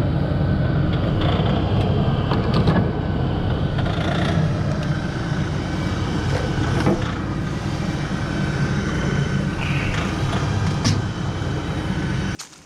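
A motor vehicle's engine running steadily as it drives, with a low rumble; it stops abruptly near the end.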